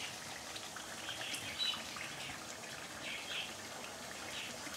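Fish curry simmering in a pan: a steady soft sizzle and bubbling with a few short spits and crackles. The oil has risen to the top and the curry is nearly cooked.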